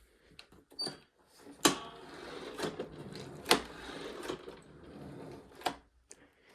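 Handling noise: a few sharp knocks with a rattling, rustling clatter between them, stopping shortly before the end.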